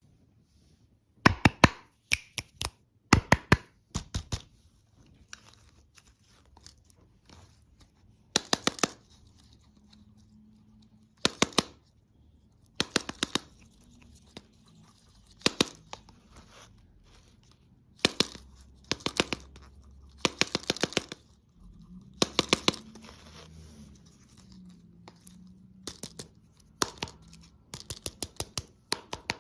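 Crisp crunching and crackling in about a dozen short bursts, each a quick run of sharp cracks with quiet pauses between: bites into crunchy candy or dessert, close to the microphone.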